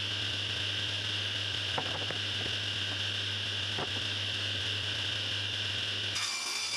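Steady high-pitched hiss over a low electrical hum, with a couple of light knocks about two and four seconds in as a plywood sheet is handled on the table saw's cast-iron top. The hum and hiss stop shortly before the end.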